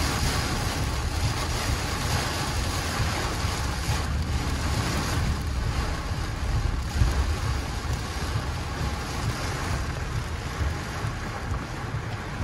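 Torrential rain pouring onto a car's roof and windshield, heard from inside the cabin, over a steady low rumble of wind and tyres on the flooded road.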